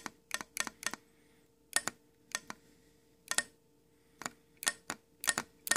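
BMW E34 heater control valve solenoid clicking sharply over and over at uneven intervals, often in pairs, as a 9-volt battery is connected to and disconnected from it. The clicks show the valve actuating and working.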